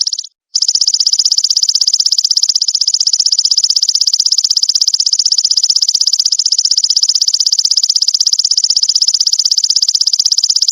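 Golden grasshopper (belalang emas) stridulating: a loud, high-pitched, fast and even pulsing trill that breaks off for a moment just after the start, then runs on unbroken.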